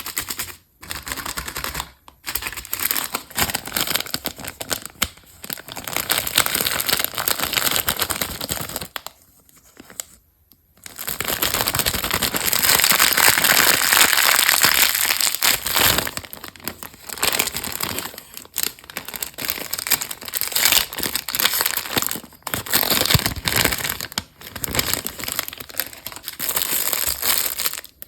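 Candy wrappers crinkled by hand as they are opened, in close-up spurts with short pauses. The crinkling is longest and loudest a little before halfway.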